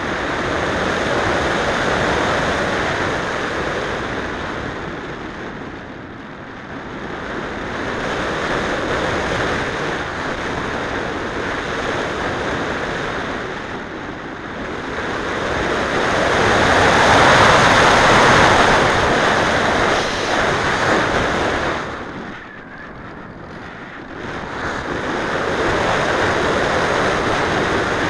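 Airflow rushing over an RC slope glider's onboard camera microphone, a steady rush of wind noise that swells and fades in slow waves. It is loudest about two-thirds of the way through, then drops sharply for a moment soon after.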